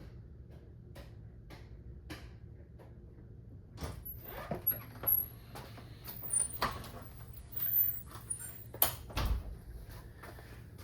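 Faint regular ticking about twice a second, then from about four seconds in a string of irregular knocks, clicks and scrapes as the toaster oven's door and metal tray are handled.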